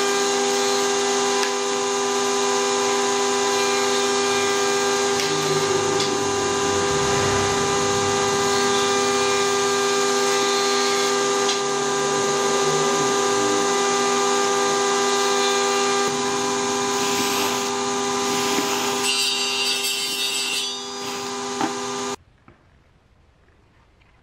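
An electric power tool's motor running at a steady whine with a rough noise over it, stopping abruptly about 22 seconds in, followed by near silence.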